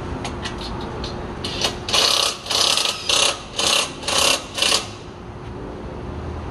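Pneumatic wrench run in about six quick bursts on a bolt at the exhaust pipe flange, after a few light clicks.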